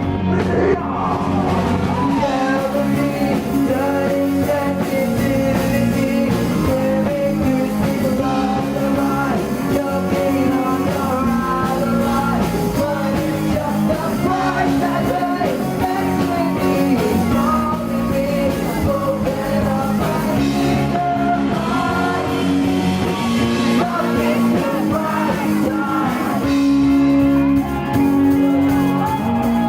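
A rock band playing live, guitars and drums, with a sung vocal line over them.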